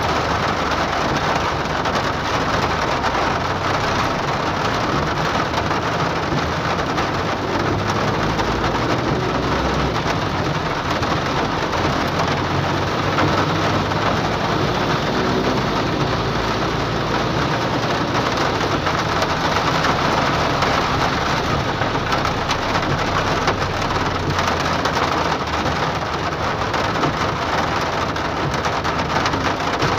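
Hard rain drumming steadily on a car's roof and windshield, heard from inside the car, with a low rumble underneath.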